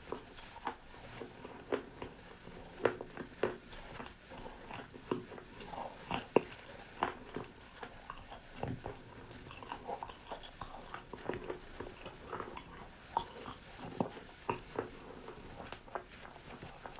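Close-up chewing of crunchy food: irregular crisp crunches and bites, about one or two a second.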